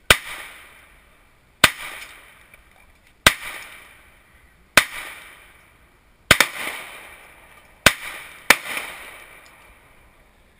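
Seven pistol shots, about one and a half seconds apart with the last two closer together, each followed by a long echoing tail.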